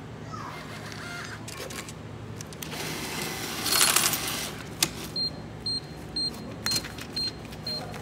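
Self-checkout cash machine paying out change: coins clatter down into the change tray, loudest about four seconds in, with a sharp click just after. The machine then beeps repeatedly, about twice a second, a prompt to take the change.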